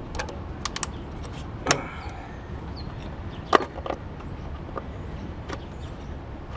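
Scattered sharp clicks and knocks of a rubber breather hose being worked off its plastic fitting on a VQ35 V6, with a steady low rumble underneath. The loudest knocks come about a second and a half in and about three and a half seconds in.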